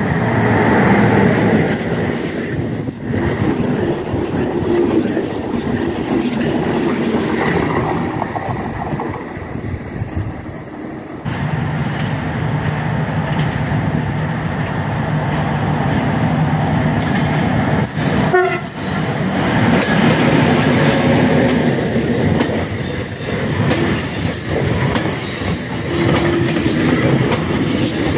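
Electric-locomotive-hauled passenger trains passing close by: a locomotive and coaches run past, then, after a cut about 11 seconds in, a second electric train approaches and its passenger cars run past with steady wheel and rail noise.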